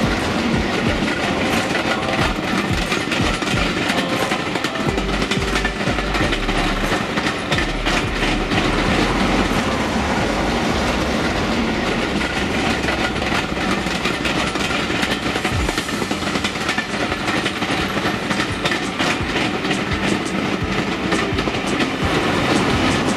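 Diesel-hauled passenger train passing close by, its coaches' wheels clicking and clattering over the rail joints in a steady run.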